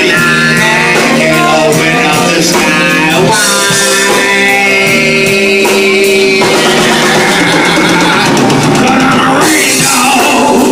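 Live band playing a rock-soul number: guitar lines over drums and bass, with no clear words sung.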